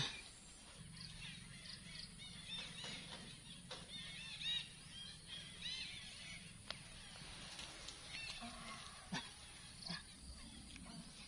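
Small birds chirping outdoors, a run of quick high chirps over a faint steady low hum, with a few sharp clicks later on.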